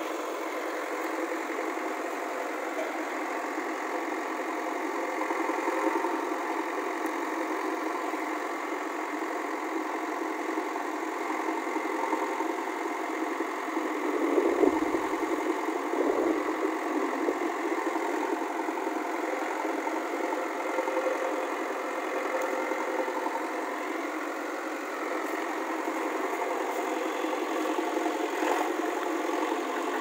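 JCB 3DX backhoe loader's diesel engine running steadily as the backhoe digs, with a louder, heavier patch about halfway through.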